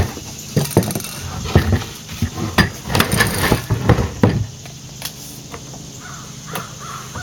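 A tape measure, a spray-paint can and a plywood board knocking and clattering as they are set down and shifted on a wooden workbench, a quick run of knocks over the first four seconds or so. After that it goes quieter, and a crow caws a few times near the end.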